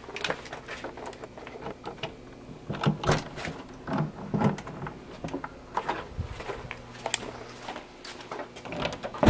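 Footsteps with scattered knocks, clicks and scuffs of things underfoot, ending in a louder thump.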